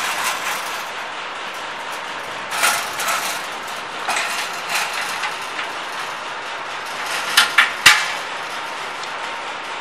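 Sharp metallic clanks and knocks of steel machine-frame parts being handled and fitted together, scattered through the middle and loudest in three quick knocks near the end, over a steady background noise.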